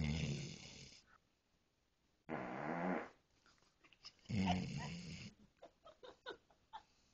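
A dog making three short, low, wavering sounds, each under a second long, about two seconds apart.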